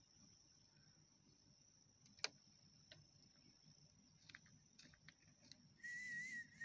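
Near silence with a faint steady high-pitched tone. A sharp click comes about two seconds in, a few lighter ticks follow, and a short wavering high call sounds near the end.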